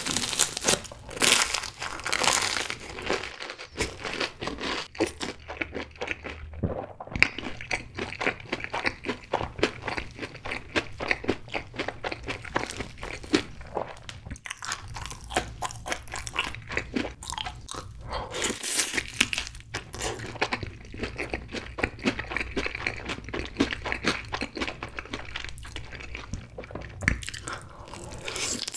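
Close-miked crunchy biting and chewing: first a Cheetos-crusted corn dog, then a sauce-glazed Korean fried chicken drumstick, with dense crackling crunches and a few louder bites.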